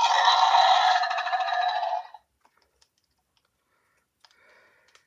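Electronic dinosaur roar played from a toy dinosaur's small built-in speaker, tinny with no bass, lasting about two seconds. A few faint clicks of the plastic toy being handled follow.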